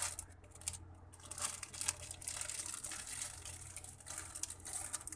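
Clear plastic packaging crinkling irregularly as hands handle it.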